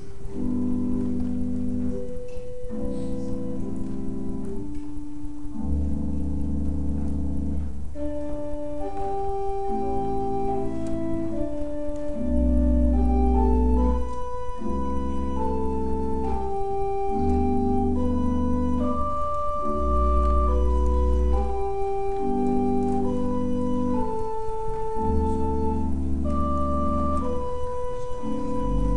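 Church organ playing slow, sustained chords over long-held deep bass notes, the chords changing every second or two, with a higher melody line coming in about eight seconds in.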